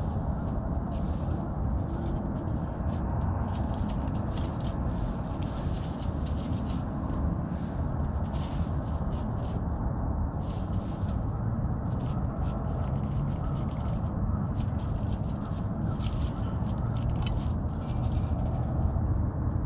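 Outdoor background: a steady low rumble with frequent light crackling and rustling throughout.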